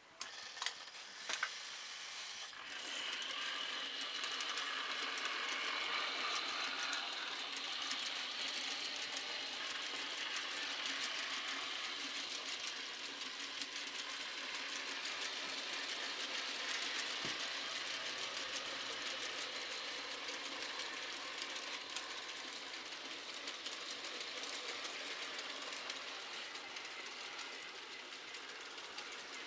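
Model railway train of hopper wagons running past on the layout track: a steady whirr of the small motor and wheels on the rails. A few sharp clicks come in the first second or so, before the running sound builds up.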